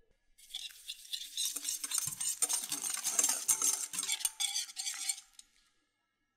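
Wire whisk beating egg, sugar, salt and yeast in a glass bowl: fast scraping and clinking of the wires against the glass, stopping shortly before the end.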